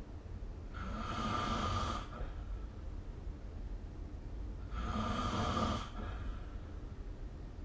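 A sleeping person snoring: two snores about four seconds apart, each lasting a little over a second, over a steady low hum.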